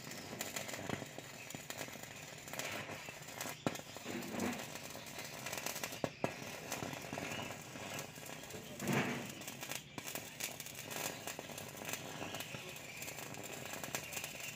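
Stick-electrode arc from an inverter welder crackling and spitting steadily as it burns through steel rebar to cut it, with sharp pops scattered throughout.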